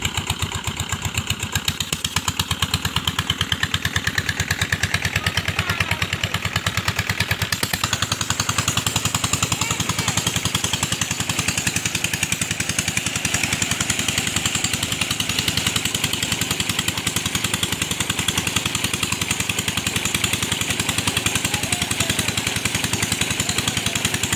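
A 16 hp single-cylinder Peter diesel engine running steadily with an even, rapid firing beat, belt-driving a tubewell water pump under load. From about a third of the way in, water gushing from the pump's outlet pipe into a concrete tank adds a hiss.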